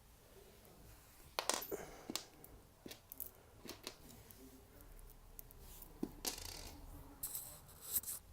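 Skateboard mounting bolts clicking and clinking as they are handled and pushed into the deck's holes: a scatter of sharp, small metallic clicks, a pair about a second and a half in and a cluster near the end, with light handling noise between.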